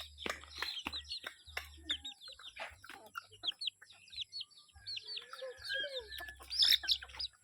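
Chickens clucking, with many short high chirps repeating throughout.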